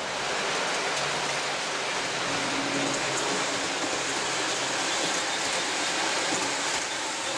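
O gauge model train, a Williams brass Pennsylvania Railroad Torpedo steam engine pulling passenger cars, running along the track. Its wheels make a steady, even rolling hiss on the rails, with a faint low hum underneath.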